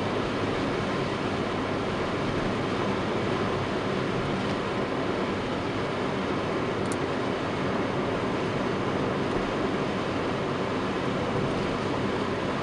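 Steady road and engine noise heard inside a moving car's cabin, an even rumble and tyre hiss that holds level throughout.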